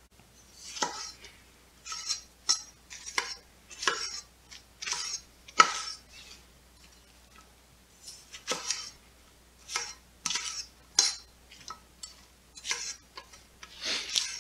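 A broad kitchen knife slicing through crisp, thick mustard green stalks and knocking on a wooden cutting board, in irregular strokes about one or two a second, with a pause of about two seconds midway.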